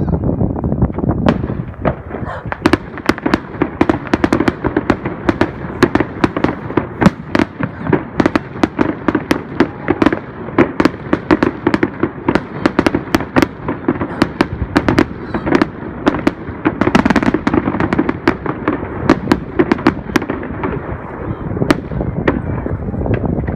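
Fireworks display: a rapid barrage of sharp bangs and crackles, several a second, over a steady rumble. It starts about a second in and thins out near the end.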